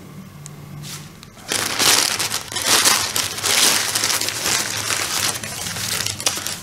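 White packing paper being unwrapped and crumpled by hand, a dense rustling and crinkling that starts about a second and a half in and keeps going.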